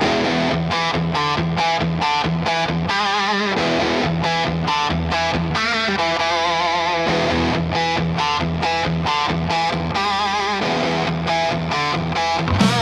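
Hard rock instrumental intro: distorted electric guitar playing a chopped, repeating riff with bent, wavering notes, and drums kicking in with heavy beats near the end.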